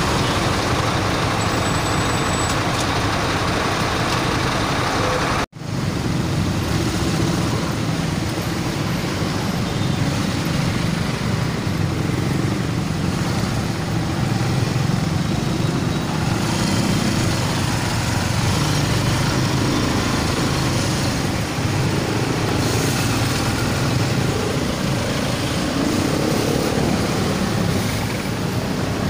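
Steady road and traffic noise heard from a motorcycle moving through heavy city traffic. The bike's own running, surrounding cars and trucks, and rushing air blend into one even noise, which cuts out for an instant about five and a half seconds in.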